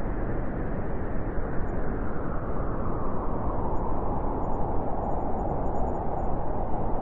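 Winter wind blowing steadily: a dense rushing noise with no clear pitch, its brightest part sinking slightly lower about halfway through.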